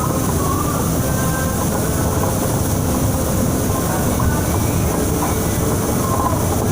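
Transjakarta bus driving steadily, with a constant rumble of engine and road under a high, even hiss of heavy rain.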